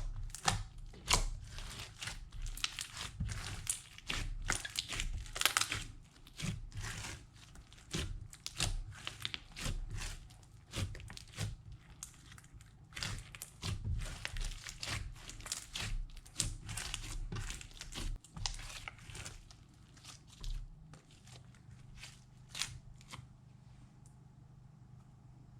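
Snow slime being kneaded and stretched by hand, making dense irregular crackling and crunching that thins out near the end.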